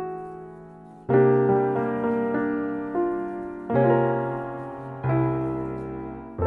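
Slow, gentle piano music: chords struck about every second and left to ring and die away.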